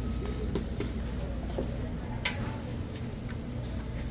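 Hotteok stall working noise: a steady low hum with a few light clicks, and one sharp click a little over two seconds in.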